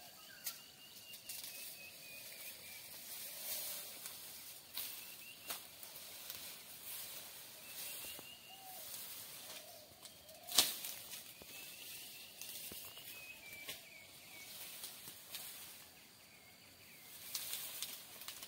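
Tall dry grass rustling and swishing as people push through it on foot, with scattered crackles and one louder sharp snap about halfway through.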